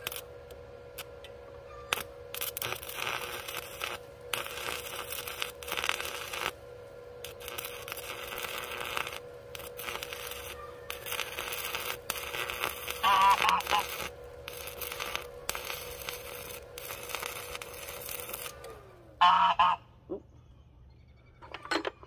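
Stick arc welding with a Power Fist 110 inverter welder: the electrode's arc crackling and spitting, with short breaks, while tacking steel. A steady whine runs beneath it and slides down in pitch as the arc stops near the end. Two short honking calls sound over it, one about halfway through and a louder one near the end.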